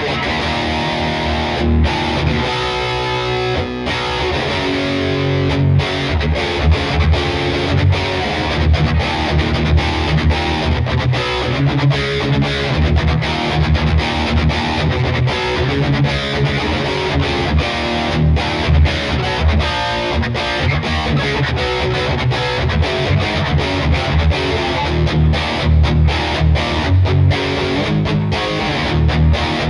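Gibson Les Paul Studio 2015 electric guitar played with a distorted tone: riffs of heavy chords and single-note lines, cut by many short, sharp stops.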